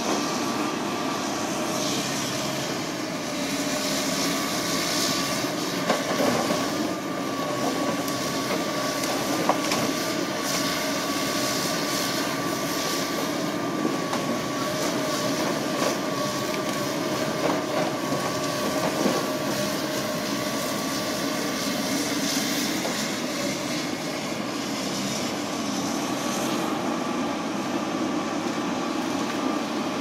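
JCB JS200 LC hydraulic excavator working a log grapple: its diesel engine runs steadily under a constant whine, with a few short knocks as eucalyptus logs are gripped and set down.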